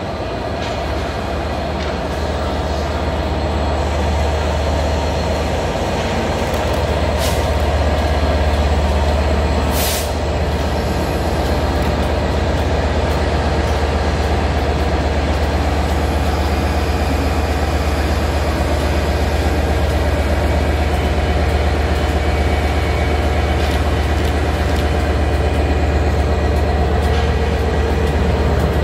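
Diesel multiple-unit trains running at the platform: a steady low engine drone that builds over the first few seconds and then holds. Two short hisses come about seven and ten seconds in.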